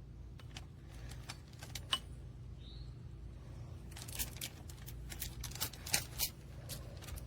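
Metal clinks and rattles from a steel security chain lock and its padlock being handled: scattered sharp clicks, denser in the second half, over a steady low hum.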